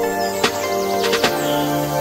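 Background instrumental music with held notes that change every second or so, and sharp percussive clicks.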